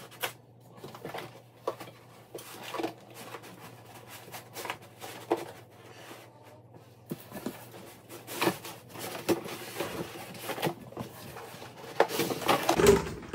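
Foam packing and cardboard being handled and pulled out of a shipping box: irregular rustling, scraping and light knocks, getting louder near the end as a foam block comes out.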